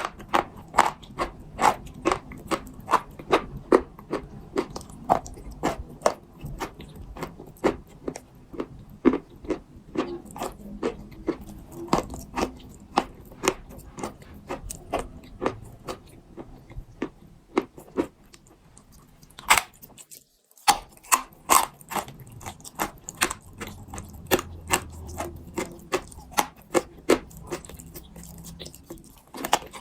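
Pieces of dried soft clay crunching and crackling, a crisp crunch about twice a second, broken by a short silent gap about twenty seconds in.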